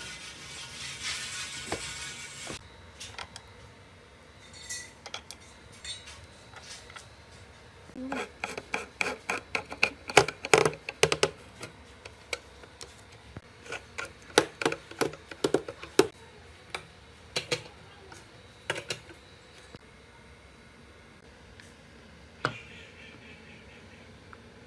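Socket wrench clicking and clinking on the metal nuts that fasten the aerator motor inside its plastic float housing. The sharp clicks come in a quick run from about 8 to 16 seconds in, with scattered single taps after.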